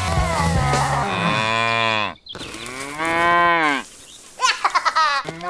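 Livestock calling: long, drawn-out calls whose pitch rises and falls. The first is cut off abruptly about two seconds in, and quicker wavering calls follow near the end.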